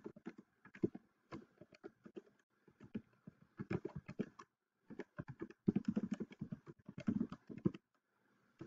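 Keystrokes on a computer keyboard, typing an email address and then a password in quick runs of clicks with short pauses between them, and a single click near the end.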